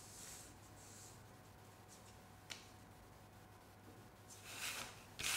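Faint rustling of a large sheet of paper being handled, with one small click about halfway and a longer rustle near the end as the sheet is moved.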